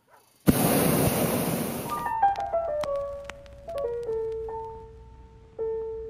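A rush of steady noise for about a second and a half, then background music comes in: a run of falling piano-like notes settling into one held note.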